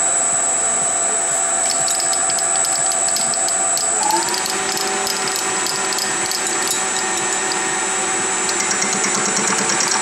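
Metal lathe running with its cutting tool taking a cut on a rusty steel part in the chuck: a steady high whine over a crackle of chips coming off. A lower tone steps up in pitch about four seconds in, and the crackle grows denser near the end.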